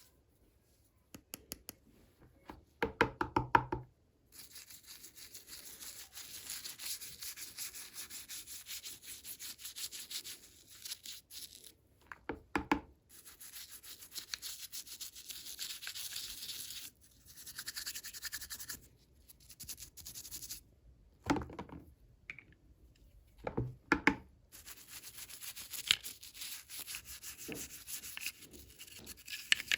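Hands handling small toys and their plastic packaging: long stretches of rustling and crinkling, broken by a few clusters of sharp knocks of small hard pieces being set down or tapped.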